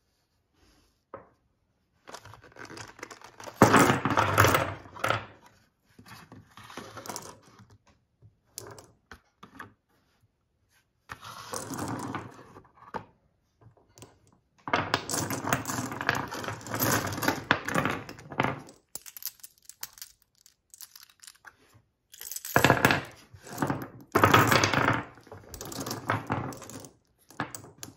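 Brass-cased .223 Remington rifle cartridges (Federal American Eagle 55-grain FMJ) clinking against one another and clattering on a wooden tabletop as they are tipped out and pushed around by hand. The clatter comes in four bouts, the loudest about four seconds in.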